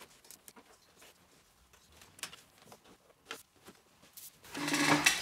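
Small scattered clicks and taps of a plastic trim tool and cable being pressed in along the edge of a car headliner, then a louder burst of noise near the end.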